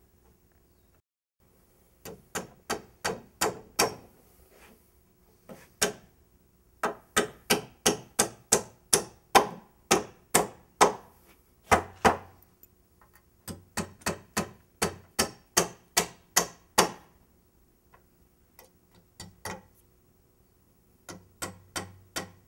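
Hammer driving nails at an angle (toenailing) through the foot of a wooden stud into the bottom plate: runs of sharp wood-and-metal strikes, about two a second, broken by short pauses between nails.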